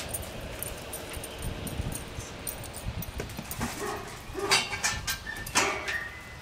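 A puppy yipping and whimpering, a few short high cries in the second half.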